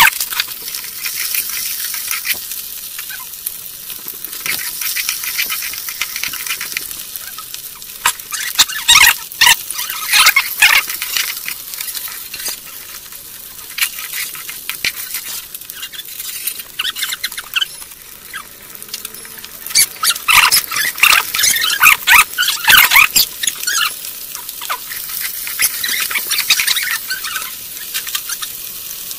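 Small fish frying in hot oil in a karahi: a steady sizzle. About eight seconds in, and again around twenty seconds in, a slotted metal skimmer scrapes and clatters against the pan as the fish are turned.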